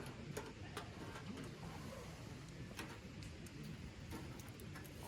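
Chicken grilling over wood embers: sparse, irregular faint crackles and pops from the embers and the cooking fat.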